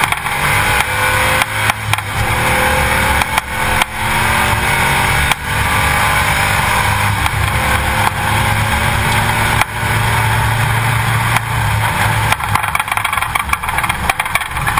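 A car engine running steadily at low revs, heard through a camera mounted low beside a front wheel, with a steady rushing noise over it.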